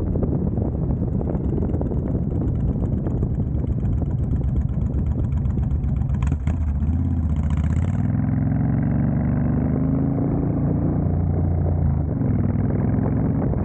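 Honda Fury's 1312 cc V-twin running on the road through a Cobra Speedster Swept exhaust, with wind noise on the microphone. About eight seconds in the wind noise drops away and the exhaust note comes through clearer and steady. There is a single click about six seconds in.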